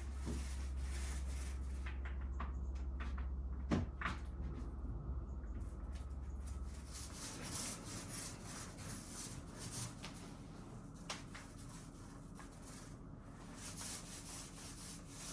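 Soft rubbing and handling sounds with a single sharp click about four seconds in, over a low steady hum that stops about halfway through.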